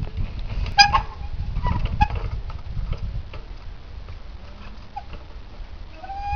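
A trials bike's brakes give short, high squeals: one about a second in, a couple more around two seconds, and a rising one near the end as the bike is held balanced on a boulder. Light clicks and knocks from the bike run underneath.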